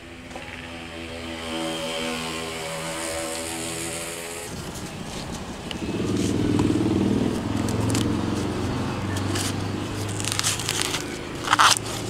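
Corn husks crackling and tearing as ears of corn are handled and husked, with a few sharp tearing strokes a little before the end, over a steady motor hum.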